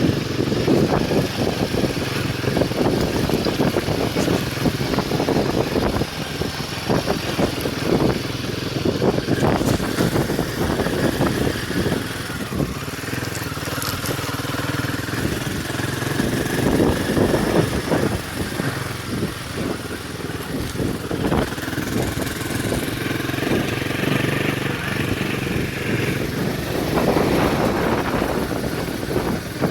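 Royal Enfield Himalayan 450's single-cylinder engine running as the motorcycle rides an off-road trail, with many short knocks and rattles over the engine sound.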